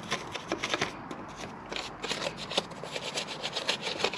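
A brush scrubbing surfaces in a car's engine bay to work degreaser in: quick, scratchy back-and-forth strokes, irregular at first and settling into a steadier rhythm of a few strokes a second in the second half.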